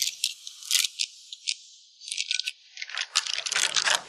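Small packet wrapper being handled and opened: scattered short crinkles and crackles, with a lull about halfway through before they pick up again.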